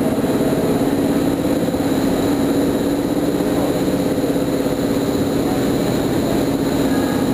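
EP07 electric locomotive humming steadily as it pulls slowly away with its express train.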